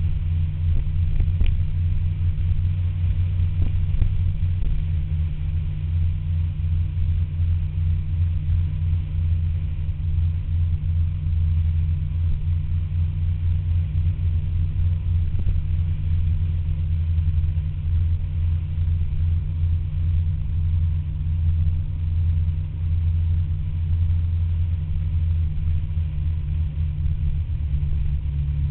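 Steady low rumble of a scooter riding at road speed, heard from a camera mounted on the scooter.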